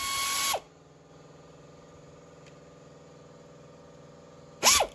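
Pneumatic air ratchet spinning out an A/C compressor mounting bolt, a high whine over air hiss that winds down and stops about half a second in. A brief second burst near the end rises and falls in pitch, with a faint steady hum between the two.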